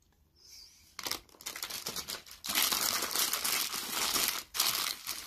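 Takeaway food wrapping crinkling and rustling as it is handled, in a few long crackly stretches from about a second in until just before the end.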